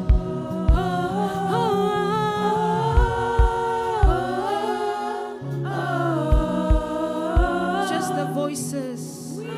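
Worship vocal group singing a slow gospel song in harmony, holding long notes, over steady low keyboard or bass chords. Low drum hits fall every second or so.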